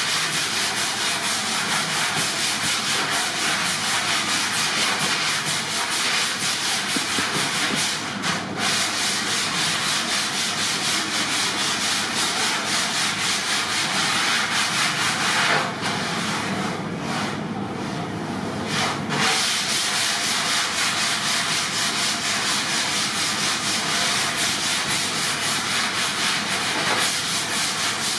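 Hand sanding block rubbed back and forth over a foam surfboard blank, a continuous scratchy rasp of quick strokes.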